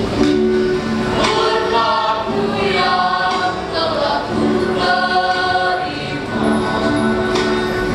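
Youth choir of girls and boys singing together, with acoustic guitar accompaniment.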